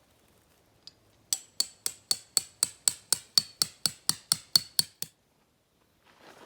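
A hammer striking a metal tent peg about fifteen times in a steady rhythm, roughly four blows a second, each with a short ringing ping, driving the peg into the ground.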